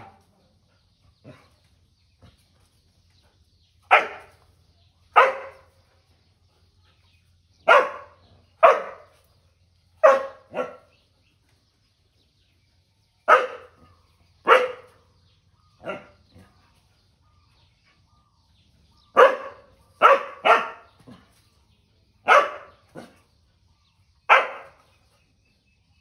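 Dog barking repeatedly at a snake it is confronting: sharp single barks and quick pairs with pauses of a few seconds between them, starting about four seconds in.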